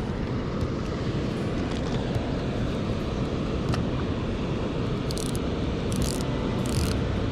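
Water pouring over a lake spillway, a steady low rushing rumble, with a few short high hisses in the second half.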